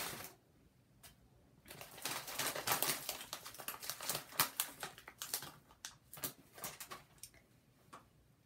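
Crinkly snack bag of tortilla chips crackling, the chips inside rattling, as a hand rummages in it for a chip. Irregular crackles begin about two seconds in and die away shortly before the end.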